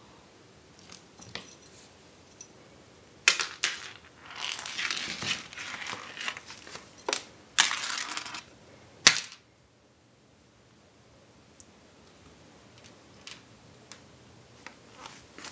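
Lanyard's metal clip clinking and skittering on a hardwood floor as a kitten plays with it: scattered clicks, then a busy run of clatter and scraping for several seconds ending in one sharp clack about nine seconds in, followed by only a few light ticks near the end.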